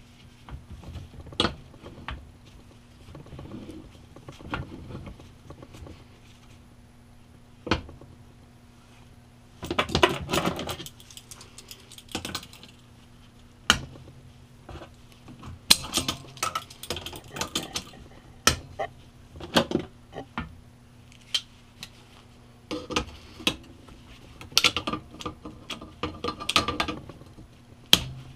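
Steel parts and tools clinking, clanking and knocking as a belt grinder's tracking mechanism is handled and set in place, in irregular bursts with a faint steady hum underneath.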